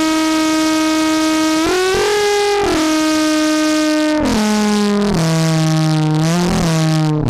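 A sine wave run through a resonant analog low-pass filter into the Erica Synths / Gamechanger Audio Plasma Drive distortion module, giving a continuous distorted synth tone rich in harmonics. It holds notes and glides between them, stepping up slightly about two seconds in, then down to lower notes in the second half.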